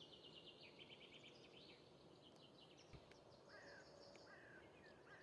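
Faint wildlife sounds: rapid high trills throughout, with four short falling bird calls in the second half.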